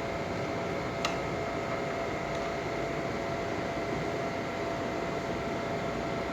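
Steady background hum and hiss, like a fan or air conditioner running, with one sharp click about a second in.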